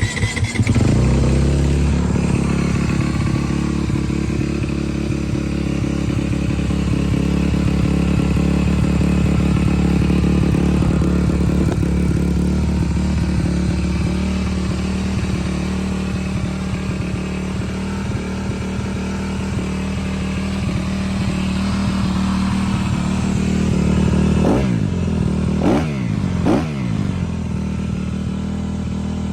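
Honda CRF250R single-cylinder four-stroke motocross engine starting up and running at a steady idle through its exhaust. Near the end it is blipped three times in quick succession, the revs rising and dropping back each time.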